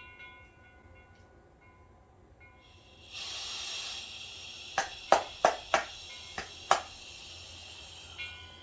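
Compressed air hissing steadily from a scuba regulator, starting suddenly about three seconds in, with several sharp clicks and knocks of handling a couple of seconds later.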